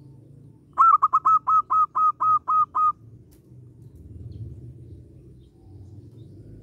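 Zebra dove (perkutut) calling a quick run of about ten short staccato coos, roughly five a second, lasting about two seconds.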